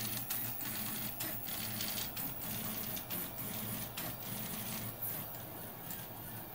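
FDM 3D printer running mid-print: its stepper motors hum in short tones that keep changing pitch as the print head moves, with frequent small clicks.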